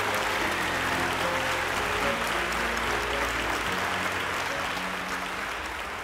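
Audience applauding over music with long held notes; the clapping eases off slightly near the end.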